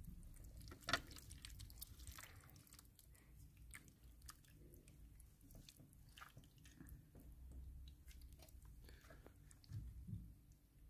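Faint wet squelches and soft plops of chicken and vegetable stew in sauce sliding out of a tilted metal pot onto a serving plate, with scattered small clicks and a couple of soft knocks near the end.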